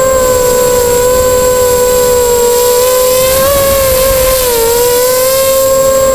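Eachine 250 FPV racing quadcopter's brushless motors and propellers whining steadily, heard through its onboard camera. The pitch rises and then dips briefly around the middle as the quad banks, with a thin, steady high tone above the whine.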